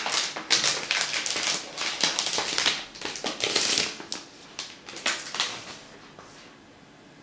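Thin clear plastic protective sleeve from a new tablet being handled and crumpled: irregular crinkling and crackling that dies away about five and a half seconds in.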